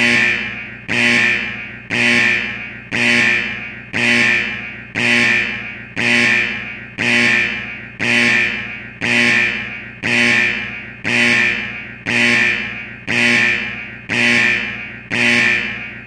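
Factory security alarm sounding like an old firehouse alarm: a sharp, ringing tone repeating about once a second, each note fading away before the next.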